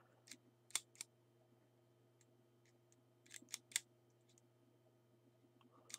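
Faint clicks of a camera lens's aperture mechanism as it is worked by hand, the diaphragm blades stepping shut and open: three light clicks in the first second and another small group about three and a half seconds in, over a low steady hum.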